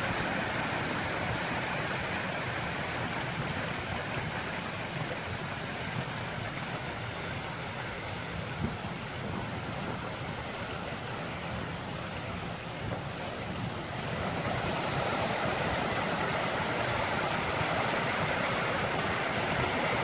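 Rainwater rushing down a concrete storm drain channel while ocean waves surge back up it against the outflow: a steady rush of water that grows a little louder about two-thirds of the way through.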